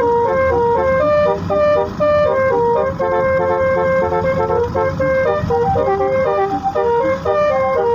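Basuri telolet horn, a multi-trumpet vehicle horn, playing a melody: a run of stepped notes sounding two or three at a time, changing every fraction of a second, with some held longer, over a low rumble.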